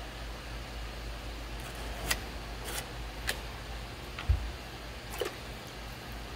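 Steady low hum with a few light clicks scattered through, and one dull knock a little past the middle, the loudest sound.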